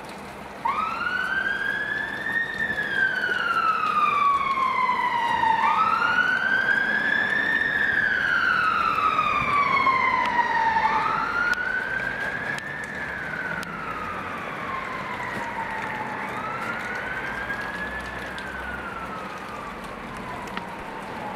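Emergency vehicle siren wailing in slow cycles, each rise quick and each fall drawn out over about three seconds, four wails in all. It starts suddenly under a second in and grows fainter over the second half, with a steady hiss of rain beneath.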